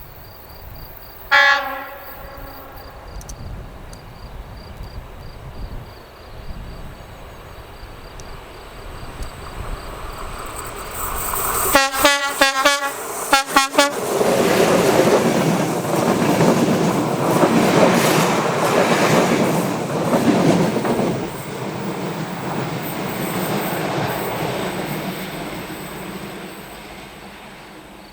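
Skoda 68E electric locomotive (BDZ class 44) hauling a passenger train past. It gives a brief horn toot about a second in, then a quick series of horn blasts near the middle, as it arrives. The loud rumble and clatter of the passing train follows, fading away as it recedes.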